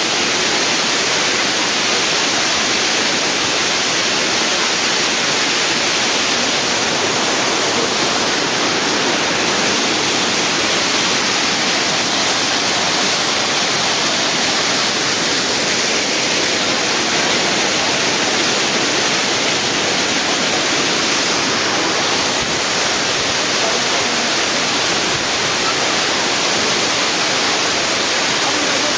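Waterfall crashing into its pool, a loud, steady rush of falling water.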